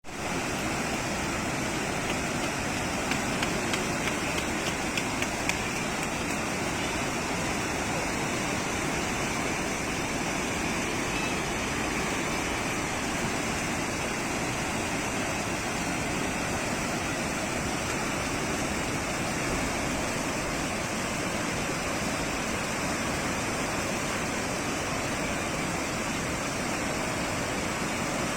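Fast mountain river water, the Alaknanda, rushing steadily.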